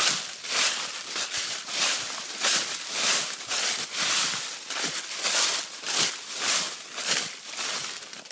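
Footsteps walking through fallen autumn leaves, the leaves rustling and crackling underfoot at each step, about two steps a second.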